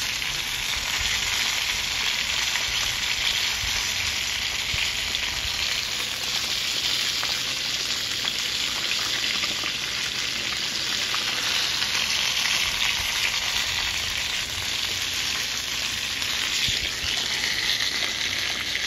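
Breaded chicken drumsticks frying in hot oil in a skillet, a steady even sizzle.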